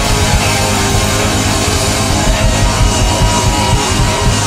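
Live hard-rock band of two electric guitars, bass guitar and drum kit playing loud, with fast, hard drum hits under the distorted guitars.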